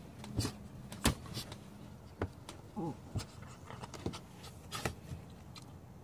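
A dog shifting and turning on blankets on the wooden floor of a dog house: scattered irregular knocks, scratches and rustles, with a short falling squeak about three seconds in.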